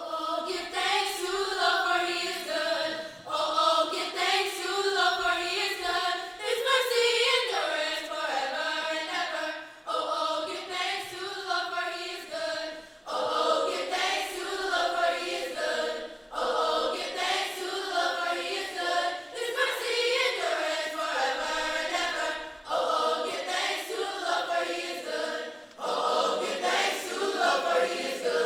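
A church choir singing together in several voices, in phrases that break off and start again about every three seconds.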